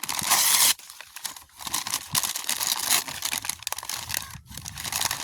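Packaging being torn open and crinkled by hand. A loud tearing burst comes in the first second, followed by irregular crinkling and rustling.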